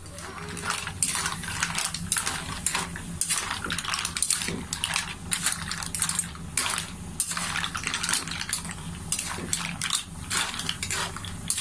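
Metal spatula stirring green mussels in their shells in a wok: the shells clatter and scrape against each other and the pan in quick, irregular clicks.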